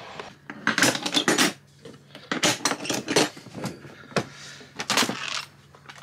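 Hand tools clinking and knocking against each other in a plastic toolbox as it is rummaged through: a series of short, uneven metallic clatters.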